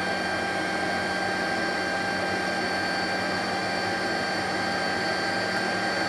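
Handley Page Victor's Rolls-Royce Conway jet engines running steadily on the ground, heard inside the cockpit: a constant rushing noise with several steady high-pitched whine tones.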